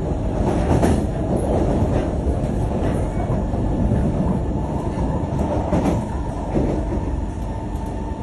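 MRT metro train running, a steady rumble heard from inside the carriage, with a few brief sharper noises over it.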